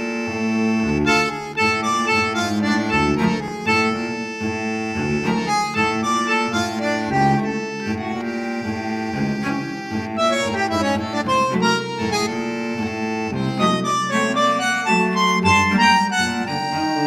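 Background music: an instrumental tune, with a melody of short changing notes over a steady bass line.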